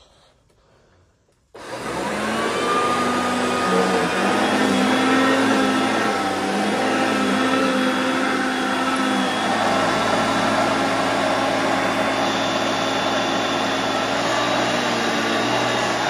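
Hoover Concept One upright vacuum cleaner switched on about a second and a half in, its motor winding up and then running steadily as it vacuums ash off a doormat.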